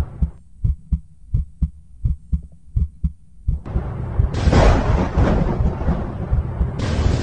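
Cinematic soundtrack: low, evenly spaced heartbeat-like thumps, about three a second, then a swelling rumble that breaks into a loud, noisy crash about four and a half seconds in, with a second wide surge near the end.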